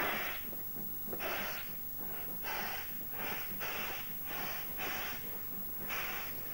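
Steam locomotive exhaust chuffing in slow, even beats, a little under two a second, as the engine works its train at low speed.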